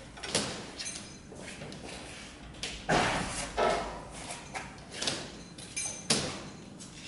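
Heavy 1969 Kozelsky equatorial mount, hanging from a hoist, being handled and turned: a series of sharp knocks and clanks, the loudest about three seconds in and just after six seconds, some with a brief high ring.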